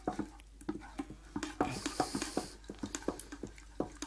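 A utensil stirring thickening soup in a metal saucepan, knocking and scraping against the pan in irregular clicks several times a second, as milk and water are worked into a butter-and-flour paste. A brief hiss comes about halfway through.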